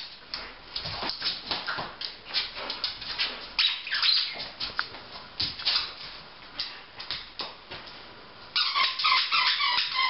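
A dog playing with a plush toy on a hardwood floor: claws clicking and skittering, with rustling handling noises. About eight seconds in, a run of rapid high-pitched squeaks begins.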